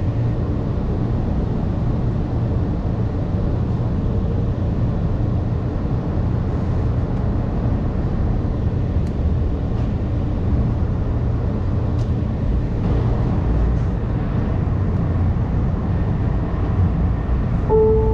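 CTrain light-rail car running, heard from inside the car as a steady low rumble. Near the end an on-board two-note chime sounds, falling in pitch.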